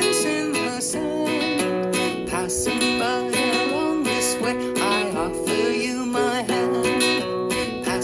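A song: a voice singing over strummed acoustic guitar.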